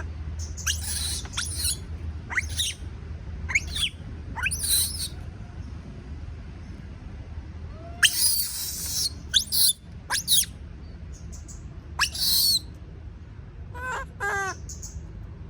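Baby monkey screaming and squealing: repeated short shrill cries that slide in pitch, with longer harsh screams about eight seconds in and again around twelve seconds, the distress calls of a young monkey afraid of being left alone. A steady low hum runs underneath.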